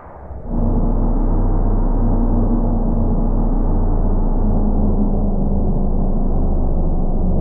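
A loud, deep, steady droning hum sets in suddenly about half a second in and holds without a break.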